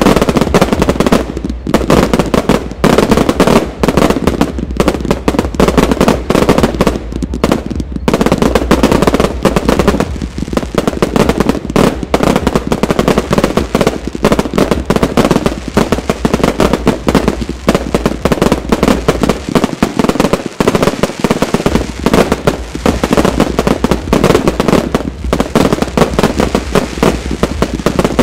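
Fireworks finale barrage: aerial shells and rising comets launching and bursting in a rapid, continuous stream of overlapping bangs.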